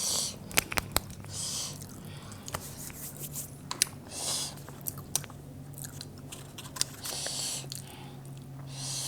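Close-up mouth sounds of people eating 2x spicy Korean noodles: wet chewing and sharp smacking clicks, with several short hissing slurps.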